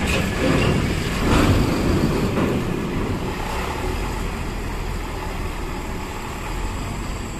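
Large bus engines running with a low, steady rumble, louder for a moment about one to two seconds in as a bus moves past.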